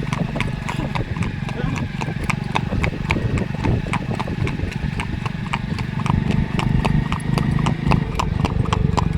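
Horse's hooves clip-clopping in a steady, even rhythm of about four strikes a second, over a continuous low hum.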